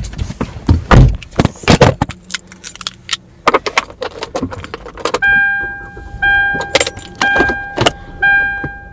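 Knocks and clattering for the first couple of seconds, then a car's warning chime pinging about once a second from about five seconds in.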